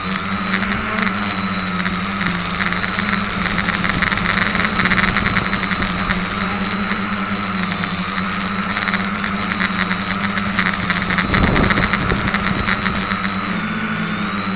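SK450KK2 quadcopter's electric motors and propellers, heard from the camera mounted on the craft in flight: a steady buzzing hum whose pitch wavers a little near the end. Bursts of rushing noise come in around four to five seconds and again around eleven to twelve seconds in.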